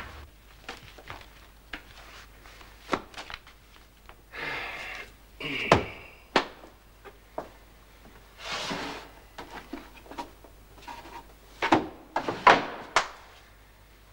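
Paper files and folders being handled at wooden pigeonhole shelves: short rustles of paper and a series of knocks and thuds as files are pulled out and set down, the sharpest near the end.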